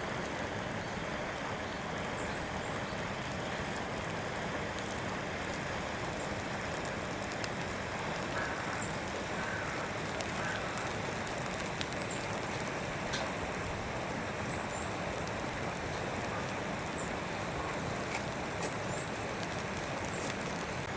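Steady rushing background noise with a few faint sharp clicks.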